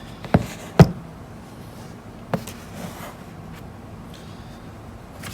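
Handling noise: three short, sharp knocks, the second about half a second after the first and the loudest, the third about two seconds in. A low, steady hum runs underneath.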